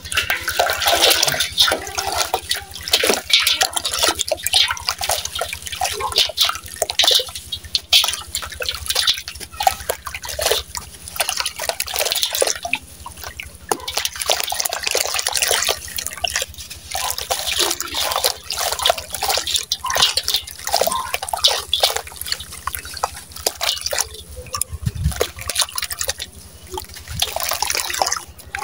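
A dry sand-cement block crumbled by hand into a steel tub of water: continuous gritty crumbling with splashing and dripping as chunks and sand fall into the water.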